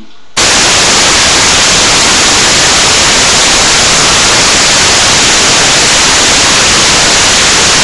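Loud, even static hiss like white noise, cutting in suddenly a moment in.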